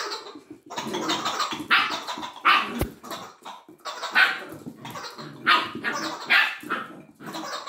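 Border collie puppy barking in a string of short bursts, a little under a second apart. A single sharp knock sounds about three seconds in.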